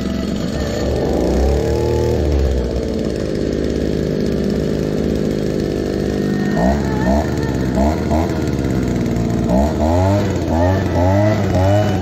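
Hecht 9254 leaf blower's small two-stroke petrol engine running, revved briefly about a second in, then blipped in a series of quick revs, first a few and then several close together near the end.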